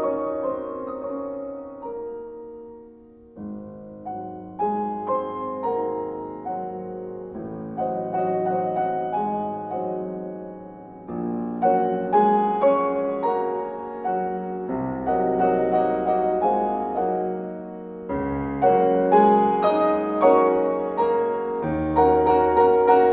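Background piano music: a gentle piece of single struck notes that dips quiet near the start, then builds fuller and louder through the second half.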